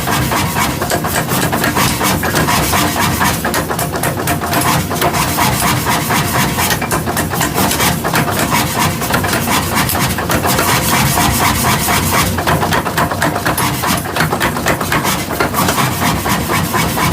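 Forging-shop machinery running steadily, with a rapid stream of knocks over a continuous roar.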